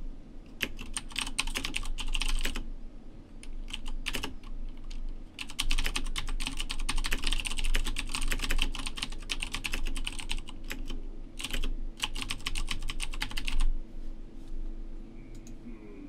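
Typing on a computer keyboard in quick bursts of keystrokes with short pauses, stopping about two seconds before the end.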